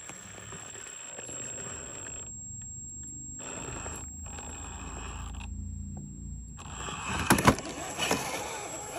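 1/10-scale electric RC rock crawler working its way over a boulder: a low motor and gear hum under a steady high-pitched whine. About seven seconds in, a few loud knocks and clatters as the truck comes down off the rock.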